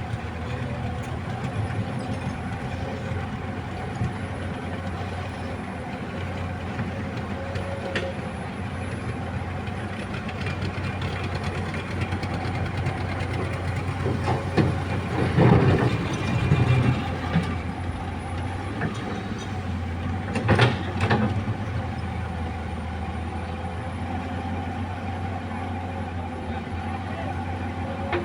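Komatsu PC200 excavator's diesel engine running steadily as it works. The noise swells louder about halfway through, and a few sharp knocks follow a few seconds later.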